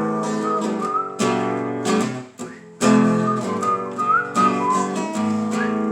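Strummed acoustic guitar with a whistled melody over it. The strumming stops for about half a second a little past two seconds in.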